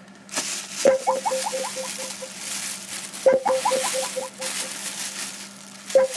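Plastic carrier bag rustling as it is handled. Over it, three times, comes a short run of quick, evenly spaced pulses that fades out, about every two and a half seconds.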